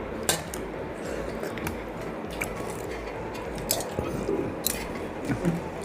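Close-up eating sounds of pakhala, wet rice soaked in water, being eaten and chewed quickly: irregular wet squishes, mouth smacks and small clicks.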